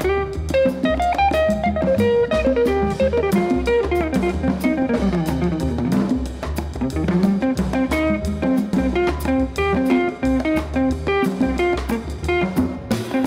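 Background music: guitar over a steady drum-kit beat.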